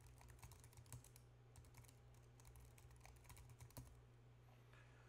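Faint, rapid typing on a computer keyboard: a quick run of keystrokes that stops a little before the end.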